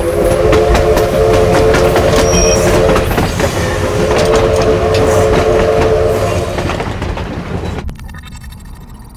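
Passenger train passing close by, its horn sounding two long blasts over the rumble and clatter of the wheels. The sound cuts off sharply about eight seconds in, leaving a faint electronic buzz.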